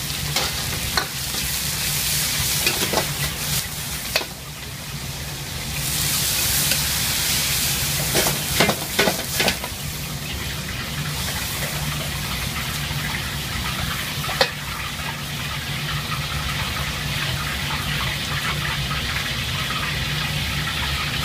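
Noodles, sliced pork and greens sizzling in a hot wok as they are stir-fried, a steady hiss under a low hum. A metal wok ladle knocks and scrapes against the wok now and then, most often about eight to ten seconds in.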